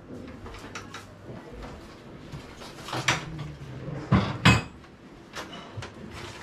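Knocks and clatter from the plastic casing of a split AC indoor unit as it is lifted and hooked onto its wall mounting plate, with two sharp knocks a little after four seconds the loudest.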